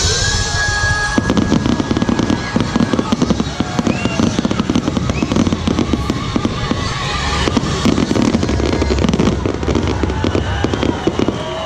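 Fireworks finale: a dense, rapid barrage of bursts and crackles, with a steady whistle through the first few seconds.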